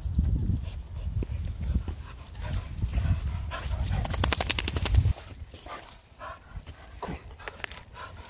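Sounds from a wet springer spaniel close to the microphone, with a low rumble on the microphone that cuts off about five seconds in. Shortly before that comes a quick rattle of many sharp clicks in a row.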